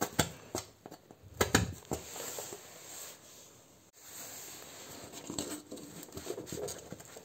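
Knife cutting through a cardboard TV box to make a cable hole: irregular scratching and sharp clicks, with a brief pause a little past the middle, then softer rustling.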